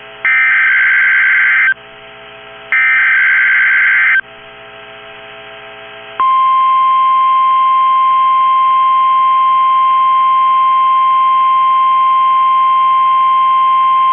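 NOAA Weather Radio EAS alert: two bursts of warbling SAME digital header data, each about a second and a half long with a second's gap between them. About six seconds in, the steady 1050 Hz warning alarm tone starts and holds, signalling an emergency alert, here a tornado watch.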